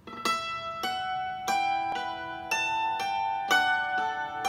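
Hammered dulcimer struck with two wooden hammers, beginning a slow tune of single notes about every half second; each note rings on and overlaps the next.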